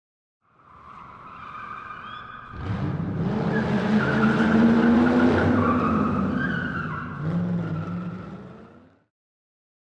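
Car sound effect: engine revving with tyre squeal over it. It builds to its loudest in the middle, eases back, and cuts off suddenly near the end.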